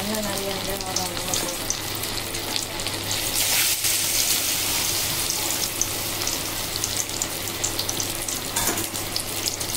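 Batter-coated mushroom and chicken balls deep-frying in hot oil in a kadai: a steady crackling sizzle, with a couple of louder crackles about three and a half and nine seconds in.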